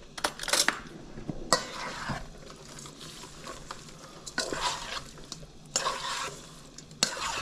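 Thinly sliced beef being mixed in a bowl with its soy-sauce marinade: wet stirring strokes at uneven intervals, with a few light clicks.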